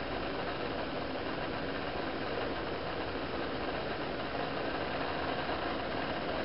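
A steady, even mechanical hum with hiss, unchanging throughout, with no distinct clicks or calls.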